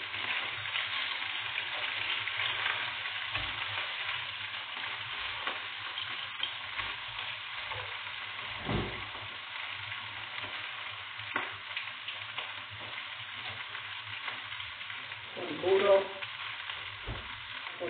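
Zucchini and mushrooms sizzling steadily in oil in a frying pan, stirred now and then with a utensil. There is a single knock about halfway through and a short, louder sound near the end.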